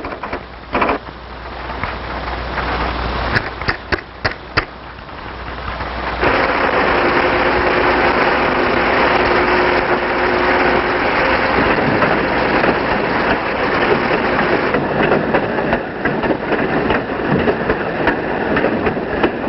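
Railroad freight car rolling along the track: steady loud rolling noise that comes in suddenly about six seconds in, with a faint steady hum for the first few seconds of it. Before that, a quieter stretch with a few sharp clicks.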